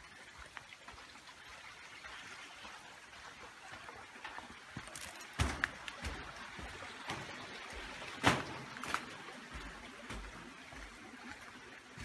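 Footsteps of a hiker on a dirt trail and a wooden footbridge, with a few sharp footfalls, the loudest about eight seconds in. Under them is the steady running of a small creek.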